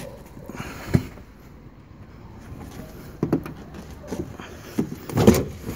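Knocks and rubbing of a car's rear parcel shelf being worked loose from the interior trim by hand. A sharp knock comes about a second in, and a cluster of knocks and scrapes follows in the second half.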